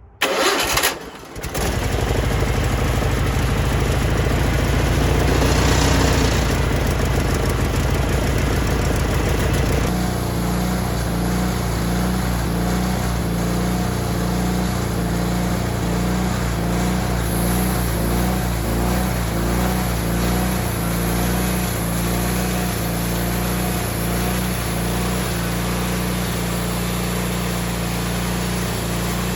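Wood-Mizer LT40 band sawmill's engine starting, with a brief dip about a second in, then running steadily to warm up. About ten seconds in it settles into a slightly quieter, even idle.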